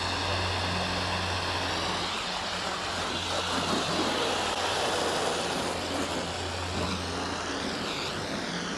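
Water spraying steadily from a hose's fire-hose-style nozzle onto a car's painted hood and sheeting off, rinsing the paint. A steady low hum runs underneath.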